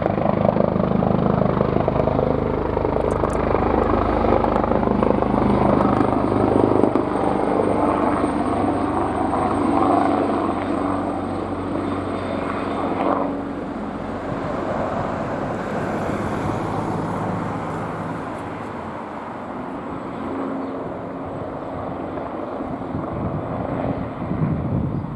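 AgustaWestland AW139 twin-turbine helicopter hovering low, its rotor and engines running steadily. It grows somewhat quieter about halfway through and builds again near the end.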